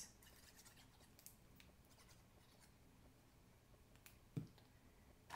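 Near silence with the faint rustle and small ticks of cardstock being handled, and one soft knock about four seconds in.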